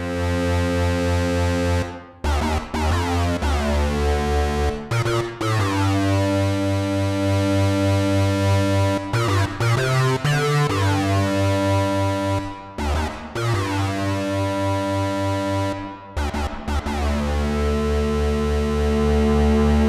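Synthesizer chords played through a Donner Vintaverb stereo reverb pedal set to its Dsverb algorithm. The chords are sustained over a deep bass and change every few seconds, with short breaks between some of them.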